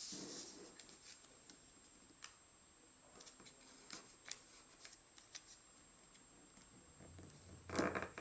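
Origami paper being folded and creased by hand: faint rustling with scattered crisp clicks as the flaps are pressed flat. There is a brief rustle at the start and a louder crinkle near the end.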